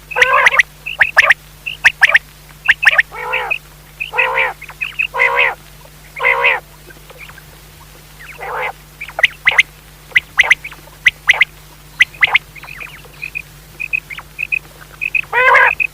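Quail calling: quick runs of short, sharp chirps mixed with longer, buzzy, wavering calls about once a second, with a pause between about 7 and 8 seconds in. A faint steady low hum runs underneath.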